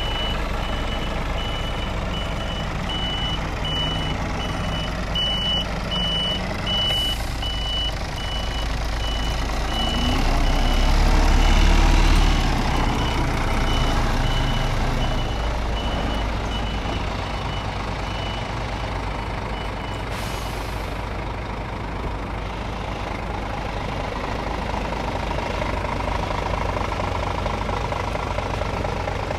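Diesel truck engine idling with a steady low rumble that swells louder about ten to thirteen seconds in. Over it, a reversing alarm gives repeated short high-pitched beeps through the first twenty seconds, then stops.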